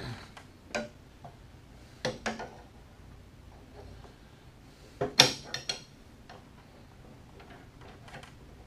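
Metal pry bar knocking and clinking against a steel mower deck and its pulleys as a new drive belt is pried over them. A few scattered knocks, with the loudest cluster about five seconds in, then a few faint ticks.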